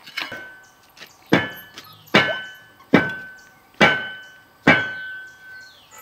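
Six sharp chopping strikes on a green bamboo pole resting on a wooden block, about one a second, the first lighter. Each hit leaves a short ringing tone that fades before the next.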